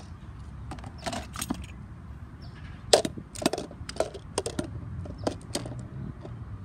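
A small plastic mini trash bin clattering in the claw of a hand-held grabber pole as it is lifted, tipped and set back down on the pavement: a string of light plastic clicks and knocks, the sharpest about three seconds in.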